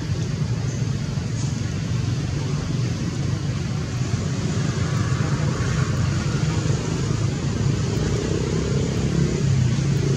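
Low, steady rumble of a running motor vehicle engine under a hiss of outdoor background noise.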